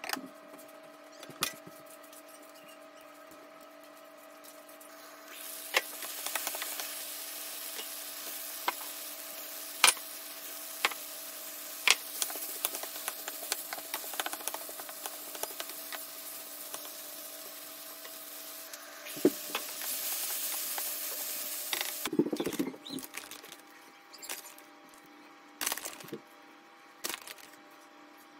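Chicken and chopped vegetables sizzling in a frying pan, stirred with a wooden spatula that scrapes and knocks against the pan. The sizzling starts about five seconds in and stops about three-quarters of the way through, leaving a few light knocks over a faint steady hum.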